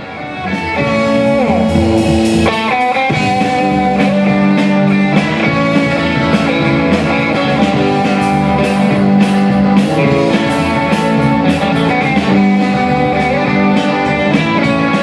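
Rock band playing live: electric guitars, electric bass and drum kit. The music swells up in the first second, then holds steady.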